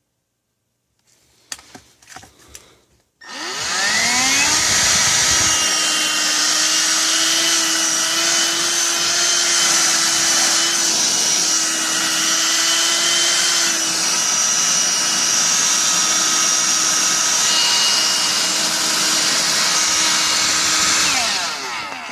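A few light clicks, then an Electrolux ZB2904X 18V cordless stick vacuum switching on: its motor spins up with a rising whine about three seconds in and runs steadily and loudly for some eighteen seconds on its freshly replaced lithium battery pack, then winds down with a falling pitch near the end.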